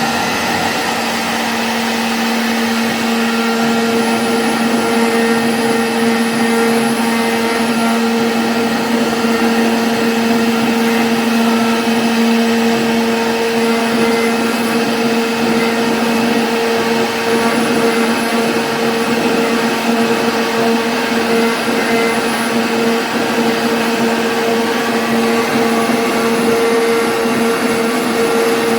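CNC router spindle running steadily with a whine, routing a 2D jali lattice pattern in MDF.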